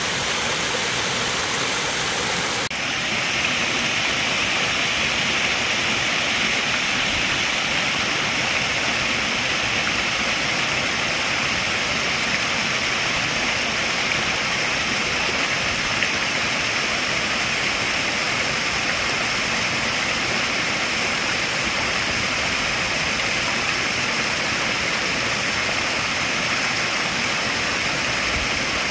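Small waterfalls splashing steadily over rocks into a koi pond, an even rushing of water that turns a little brighter a few seconds in.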